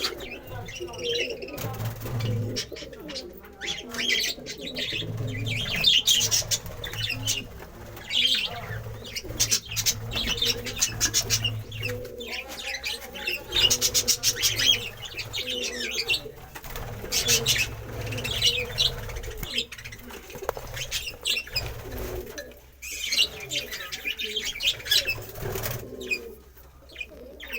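Budgerigars chirping and chattering in a breeding colony, with repeated bursts of wing flapping.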